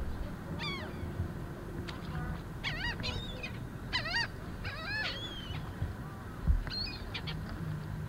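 Birds calling: short, bending cries, several in quick runs through the middle, over a low rumble, with a single dull thump past the middle.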